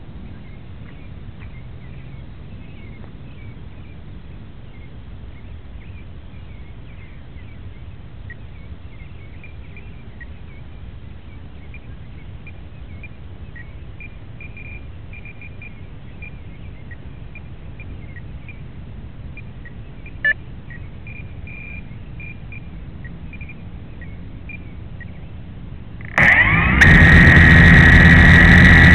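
Low outdoor background with faint scattered chirps and a single click, until near the end the Blade 350 QX3 quadcopter's four brushless motors suddenly start up and run loudly as a steady high whine rising slightly in pitch, the drone spooling up on the ground for takeoff.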